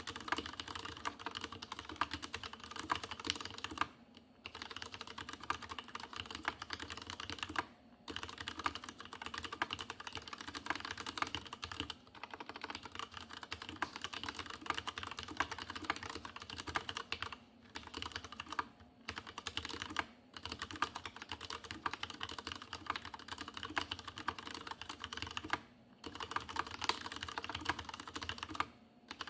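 Fast, continuous typing on a Leopold FC750R tenkeyless mechanical keyboard with unlubricated Cherry MX Red linear switches: a dense run of key clacks broken by short pauses every few seconds. The case has a strong hollow ring, which the owner notes as large case resonance.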